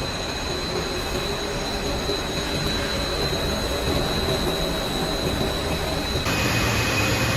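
Fiber cement board production-line machinery running: a steady mechanical noise with a high, steady whine, changing abruptly to a different machine sound about six seconds in.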